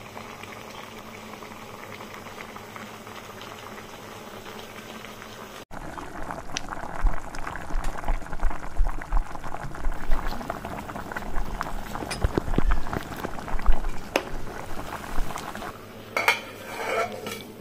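Chicken, tomatoes and green chillies cooking in their own juices in a metal pot: steady sizzling and bubbling, louder and more crackly after a cut about six seconds in. Near the end the pot's metal lid clinks as a hand lifts it by its knob.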